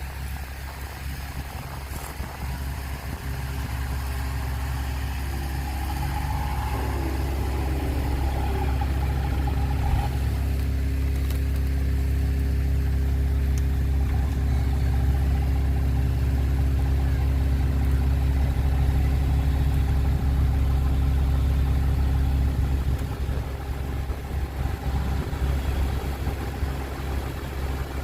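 Truck engine running steadily, growing louder over the first several seconds and easing off a little near the end.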